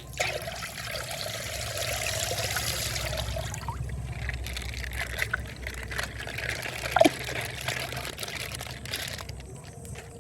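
Water trickling and pouring out of a punctured plastic ice bag, easing off about nine seconds in, with a brief squeak about seven seconds in.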